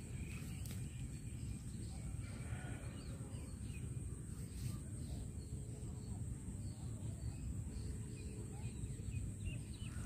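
Faint scattered bird chirps over a low, fluctuating rumble and a steady high hiss.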